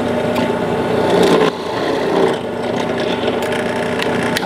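Benchtop drill press running steadily while its 5/8-inch bit bores a hole through a wooden 1x4 board.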